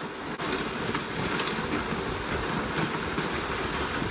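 Boots crunching through thin snow on grass as a sledge is pulled along behind, a steady scraping rush with a few sharper crunches.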